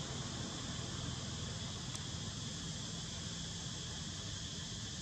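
Steady high-pitched insect drone over a low background hum, unchanging throughout, with one faint tick about two seconds in.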